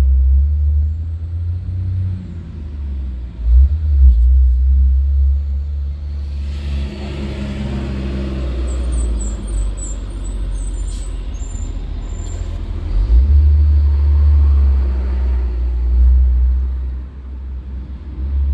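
Road traffic passing: a low, uneven rumble throughout, with a vehicle swelling up and fading away from about six to thirteen seconds in, and a few short high squeals near its loudest point.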